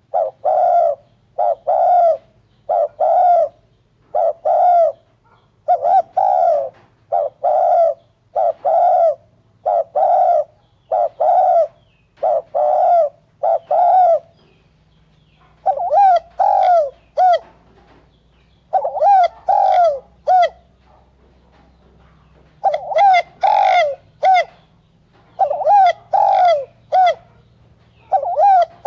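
Spotted dove cooing in a long run of loud, evenly repeated coos. Just after the middle it pauses for a moment, then goes on in phrases of three or four coos with short gaps between them.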